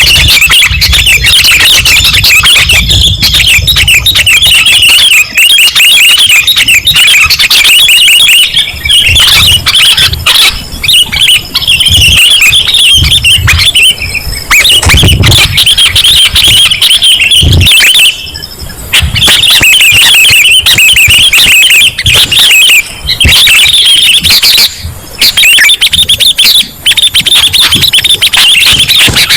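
Sooty-headed bulbuls (kutilang) chattering and singing: loud, dense, quick chirping calls, many overlapping, played as a bird-luring recording, with a couple of brief breaks in the second half.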